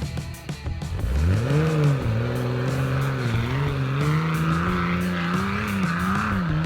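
Nissan Patrol Y61's TB42 straight-six petrol engine revving up sharply about a second in, then held at high revs that dip and rise again under load.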